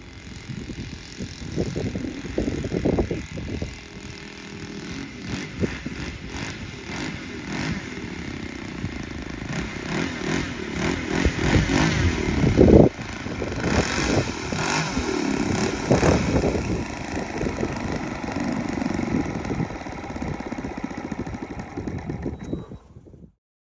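OS FS-120 four-stroke glow engine of a quarter-scale model Piper Cub running at low throttle as the plane taxis on grass, its level rising and falling, loudest about halfway through.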